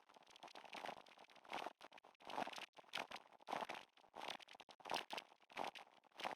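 Footstep sounds at walking pace, about three every two seconds, each a short burst of noise.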